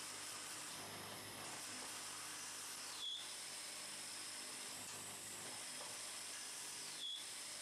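A German 1988 cam-controlled automatic bar lathe running, its form tools turning wooden beads from a wooden bar: a steady hiss of cutting. A short high-pitched squeak comes about every four seconds, twice.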